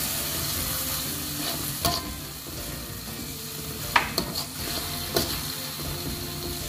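Chopped shallots, chillies, tomato and torch ginger sizzling in a wok with a little water added, as a metal spatula stirs and scrapes through them. A few sharp knocks of the spatula on the wok stand out, the loudest about four seconds in.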